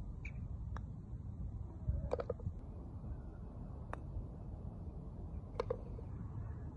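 A handful of sharp, separate clicks over a low wind rumble, among them the click of a golf iron striking the ball on short chip shots.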